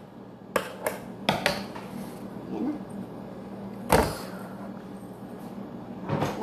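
Kitchen handling noises: a few sharp clicks in the first second and a half, then a single loud knock about four seconds in, over a steady low hum.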